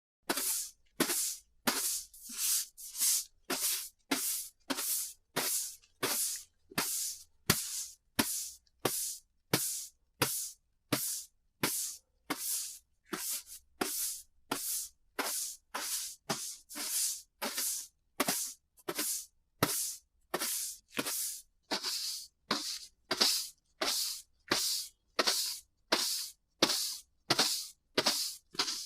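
Broom sweeping a hard floor in steady, even strokes, about three short swishes every two seconds.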